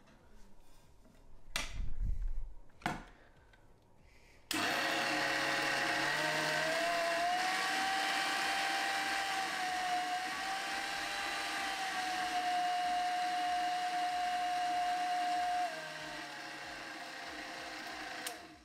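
A couple of knocks first as the mixer's tilting head is lowered into place. Then the 1950 Kenwood Chef A700 food mixer's motor starts suddenly and runs with a steady whine that rises in pitch as the speed dial is turned up. Near the end it drops in pitch and level as the speed is turned down, and it stops; the freshly regreased mixer is running smoothly.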